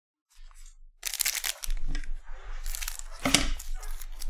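Foil wrapper of a Panini Revolution basketball card pack crinkling and tearing as it is handled and opened by hand, starting about a second in, with the loudest rip a little past three seconds.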